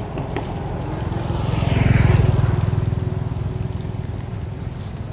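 A motor engine passing by: a steady low engine rumble swells to its loudest about two seconds in, then fades away.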